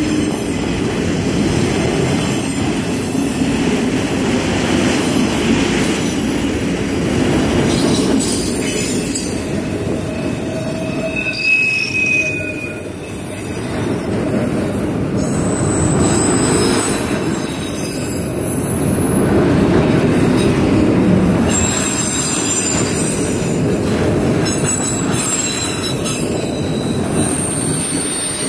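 Loaded autorack freight cars rolling past: a steady rumble and clatter of steel wheels on rail, with high metallic squeals that come and go, one of them rising in pitch about eleven seconds in.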